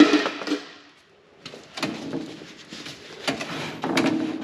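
Scattered metal clicks and knocks as a combine's rear spreader discs are turned by hand, the drive clicking as they go round. The knocks come irregularly, starting about a second and a half in.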